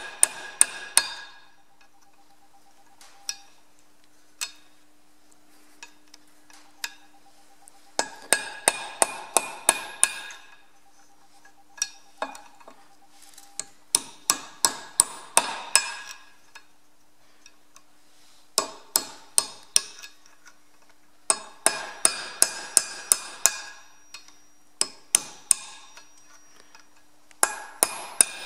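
A hammer tapping a steel punch into a drilled-out brake drum bolt hole in a Ferguson FE35 axle hub, in short runs of quick, ringing metallic taps, about five a second, with pauses between. The punch is driving out the leftover shell of the broken bolt's thread.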